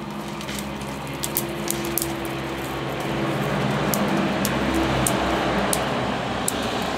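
A motor vehicle's engine hums, then a broad rush of noise swells through the second half as the vehicle passes. Sharp clicks and taps of stiff reed stalks being woven into a basket are heard throughout.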